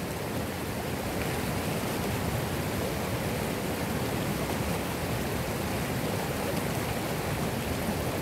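Small river's flowing water: a steady, even rush.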